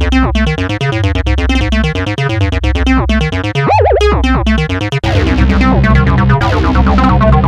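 Electronic background music: synthesizer and keyboard over a steady bass line, with a wobbling pitch bend near the middle.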